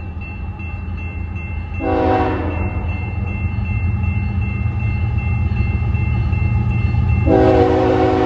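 Approaching BNSF diesel freight locomotives: a low engine rumble that grows steadily louder, a short horn blast about two seconds in, and a long horn blast starting near the end. A steady high ringing from the grade-crossing bell runs underneath.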